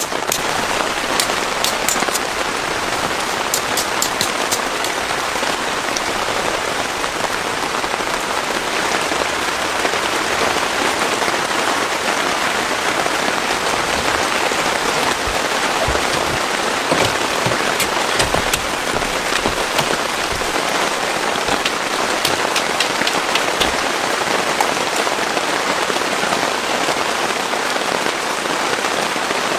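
Heavy rain falling steadily, with many sharp ticks of individual drops striking a surface.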